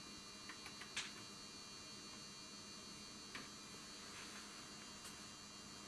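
Faint steady electrical hum from bench electronics, with a few light clicks of oscilloscope buttons being pressed about a second in.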